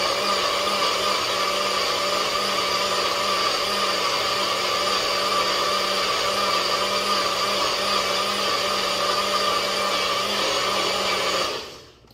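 Compact bullet-style personal blender running steadily while blending a thick frozen-fruit and greens smoothie. It runs down and stops shortly before the end.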